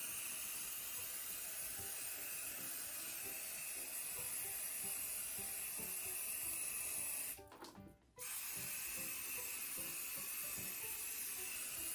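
Steady hiss of an aerosol hairspray can spraying onto hair, broken by a short cut-out about eight seconds in. Faint background music runs underneath.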